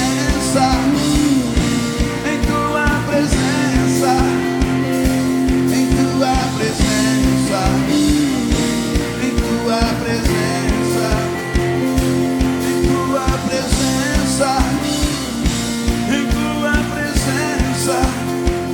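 Upbeat live worship band music: a fast, steady drum beat under long held chords, with some singing over it.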